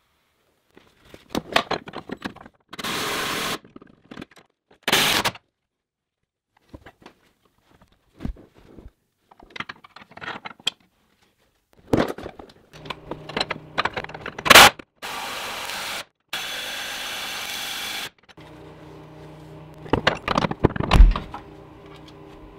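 Hand work mounting a compressor bracket under a pickup: scattered clinks and knocks of tools and metal parts, with several short runs of a power tool, each one to two seconds long and stopping abruptly.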